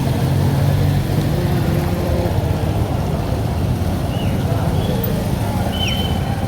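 Street traffic: a motor vehicle's engine running close by, strongest in the first two seconds and then fading into a steady wash of road noise.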